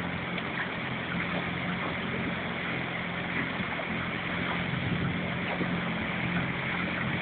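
Motorboat engine running steadily, a constant low hum, with wind and water noise over it.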